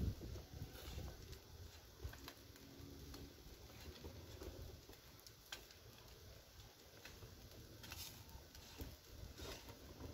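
Faint, irregular crackling and popping of a wood fire burning down to glowing embers, over a low rumble.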